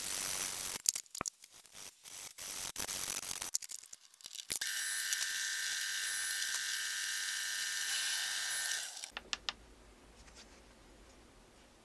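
A small high-speed electric motor whines steadily for about four seconds, then cuts off. Before it come scraping noise and scattered clicks, and a few faint clicks follow.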